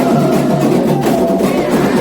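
Candomblé ritual drumming: atabaque hand drums playing a dense, continuous rhythm.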